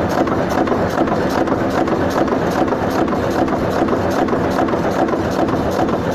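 Metal-cutting machine tool running on a workpiece: a steady mechanical running noise with a fast, even ticking over it.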